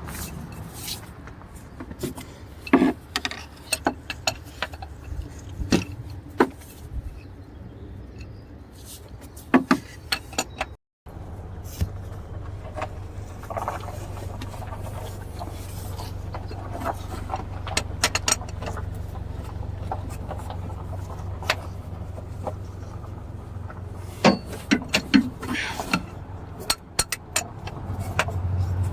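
Scattered metal clinks and knocks of a wrench being worked on the oil filter of a Ford Mustang 3.7 V6 to break it loose, with a steady low hum underneath from about eleven seconds in.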